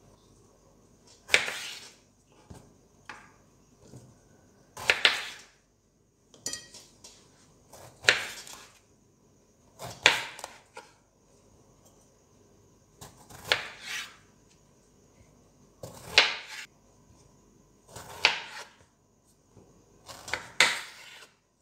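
Kitchen knife cutting long purple eggplants into chunks on a wooden cutting board. There are about eight separate cuts, two to three seconds apart, each a brief slice ending in a knock of the blade on the board.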